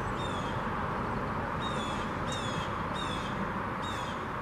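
A bird calling repeatedly: short, sharp notes that slide downward, about one a second, over a steady background hiss.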